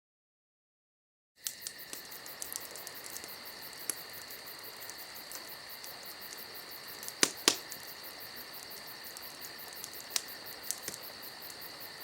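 Insects chirping steadily, starting after about a second and a half of silence. A few sharp clicks sound over it, the loudest two close together about seven seconds in.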